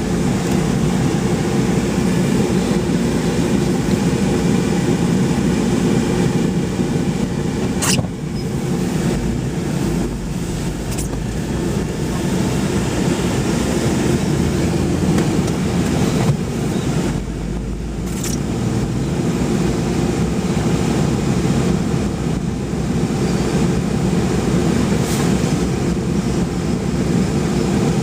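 A car driving at road speed, with its steady engine and tyre rumble heard from inside the cabin. A few brief clicks sound over it.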